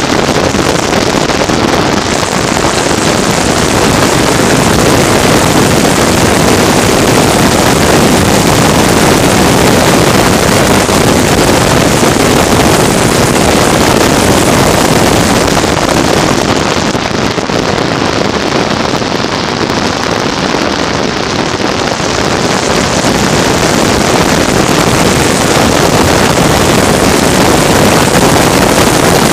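A vehicle running at speed during a race, with heavy wind noise on the microphone: a loud, steady rushing noise with no distinct engine pitch, easing slightly for a few seconds past the middle.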